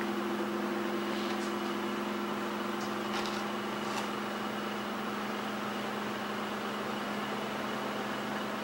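Steady low hum with an even hiss: background room tone, with a few faint light clicks between about one and four seconds in.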